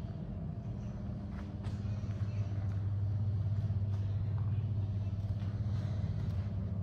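Steady low machinery hum in a workshop, getting a little louder after about two seconds, with a few faint taps.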